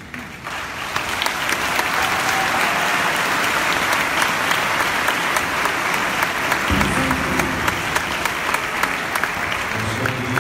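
A congregation applauding, the clapping building over the first second or two and then holding steady.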